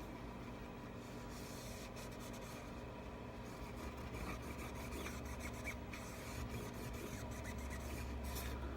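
Faint rubbing and scratching in short, irregular strokes as old screen adhesive residue is scraped and picked off the iPad Pro 10.5's frame.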